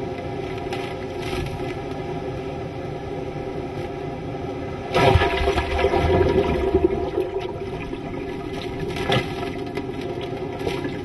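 Hurricane wind and driving rain, a steady rush, with a sudden much louder gust about five seconds in that lasts about two seconds and buffets the microphone with a low rumble, and a shorter gust near the end.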